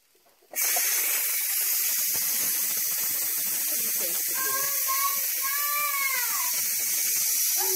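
Ninja Foodi pressure cooker venting steam through its pressure-release valve: a loud, steady hiss that starts about half a second in, the quick release of pressure after cooking.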